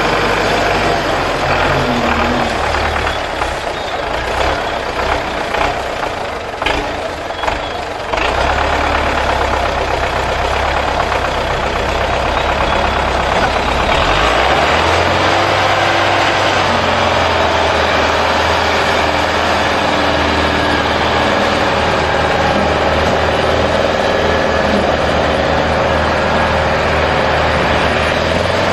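Diesel tractor engines running hard under load in a tractor tug-of-war. The engine note shifts a few seconds in and again about halfway through, then holds steady and loud.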